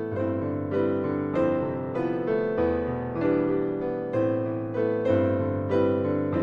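Background piano music: a gentle melody with notes struck at an even pace, a new note about every two thirds of a second.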